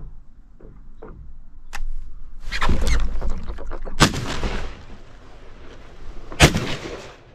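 Two shotgun shots about two and a half seconds apart, each a sharp blast with a short echoing tail. They follow a loud, rough rushing flurry about two and a half seconds in.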